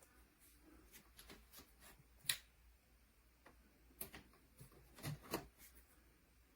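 A few scattered small clicks and taps from handling camera gear on a tripod, the sharpest about two seconds in and a quick pair a little after five seconds.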